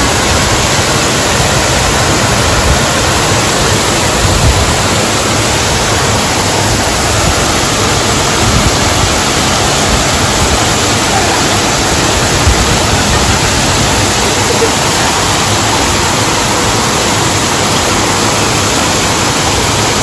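Man-made waterfall: a curtain of water pouring off a ledge and splashing into a shallow pond, a loud, steady rush.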